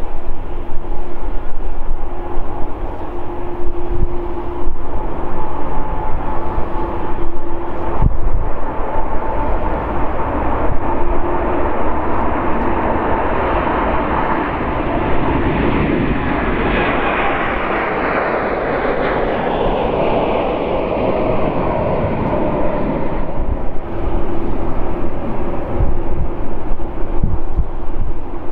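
The two GEnx-1B turbofans of a Boeing 787-9 taxiing past at low power. A steady engine whine with two held tones swells into a broad rush as the jet passes about halfway through, then eases off again.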